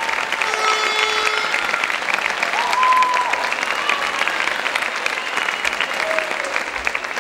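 Theatre audience applauding, a dense, irregular clapping that holds steady, with a few brief high calls rising over it.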